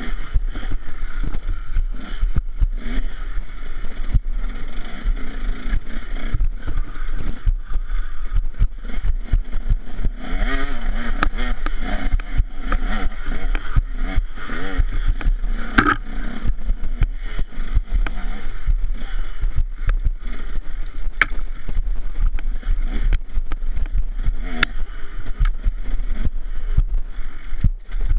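KTM 150 SX two-stroke dirt-bike engine revving up and down as the bike is ridden fast on a rough trail, heard from on board, with many short knocks and rattles running through it.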